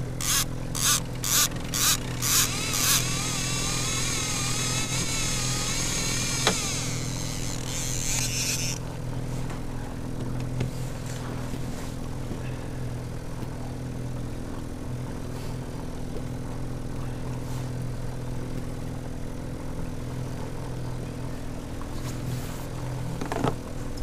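A boat motor running steadily while trolling. Over it come evenly spaced sharp clicks, about two a second, for the first three seconds. Then a high whirring hiss takes over and stops suddenly about nine seconds in.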